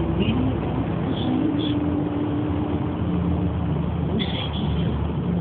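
Steady engine and tyre noise of a Volkswagen car driving through a road tunnel, heard from inside the cabin, with a low hum running under it.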